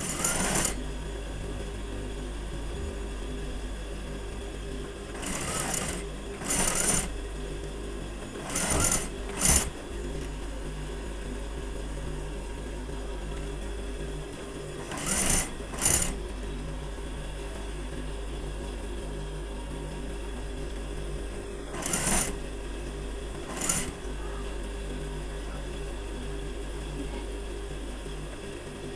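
Industrial sewing machine stitching a seam in short runs, about nine of them and often in pairs, with its motor humming steadily between runs.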